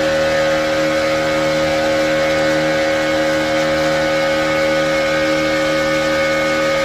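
Boat motor running steadily at cruising speed, a constant-pitch drone with water and rushing noise beneath it.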